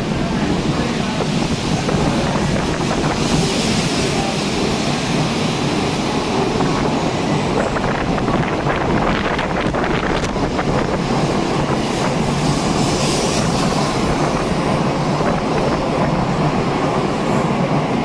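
A Tokaido Shinkansen train running along the station platform, a steady loud rush with a patch of fine clicking about halfway through. Typhoon wind buffets the microphone underneath.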